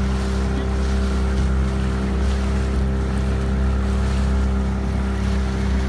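Motorboat engine running at a steady speed with an even hum, under the rushing noise of water along the hull and wind.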